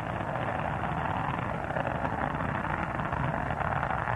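Space Shuttle Endeavour's ascent roar from its solid rocket boosters and three liquid-fuel main engines: a steady rushing noise over a low rumble, growing a little louder about a second in.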